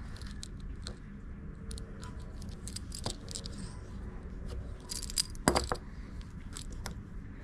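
Scattered small clicks and light taps as a shell pendant on a metal jump ring is handled and threaded onto a cord, with a louder cluster of clicks about five seconds in.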